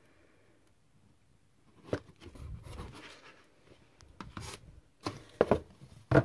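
Pages of a paperback picture book being turned and books shifted about in a cardboard box: irregular paper rustling and rubbing with a few sharp knocks, starting about two seconds in.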